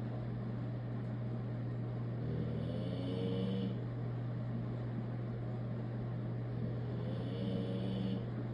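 A sleeping dog snoring loudly: two drawn-out snores about four and a half seconds apart, each lasting a little over a second, over a steady low hum.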